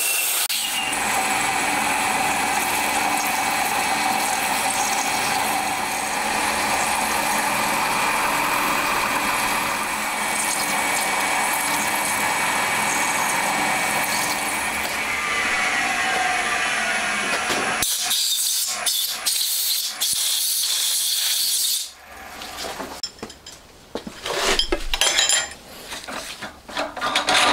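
Milling machine spindle running as a shortened drill bores a port hole into an aluminium cylinder head, a steady machine sound with a whine. About fifteen seconds in the pitch falls as the spindle winds down, a few seconds of hiss follow, and near the end come scattered clinks and knocks as the drill chuck is handled.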